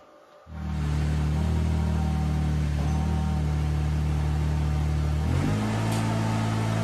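Ventrac compact tractor's engine running steadily. It comes in abruptly about half a second in, and about five seconds in its note shifts to a different pitch.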